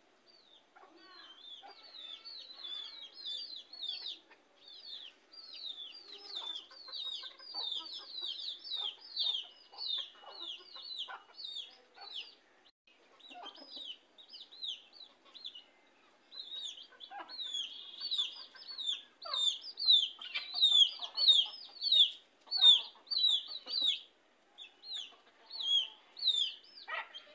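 Chicks peeping over a hen's low clucking: a steady stream of short, high, falling peeps, several a second, getting louder in the second half.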